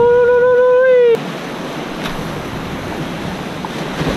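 Surf washing against sea rocks, with wind on the microphone. During the first second a loud, held tone with overtones glides up, holds steady, and then cuts off abruptly.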